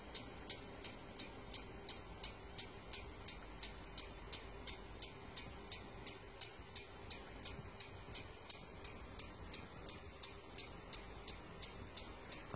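Agricultural impact sprinkler ticking steadily as it rotates, about three clicks a second, while it waters the field.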